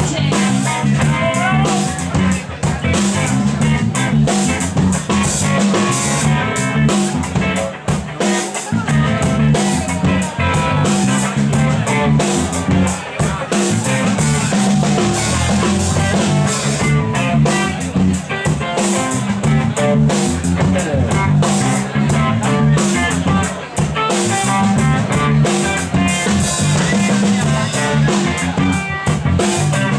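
A rock band playing live, loud and steady, with a driving drum kit and electric guitar.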